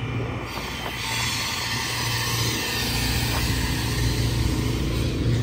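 Small portable air compressor's engine running steadily with a low hum, joined about half a second in by a steady hiss.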